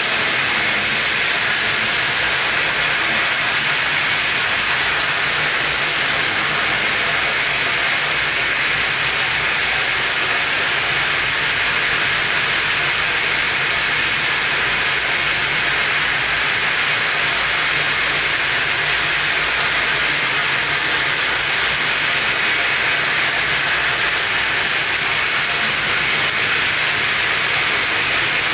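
A loud, steady hiss of even noise, strongest in the upper-middle range, that does not change at all.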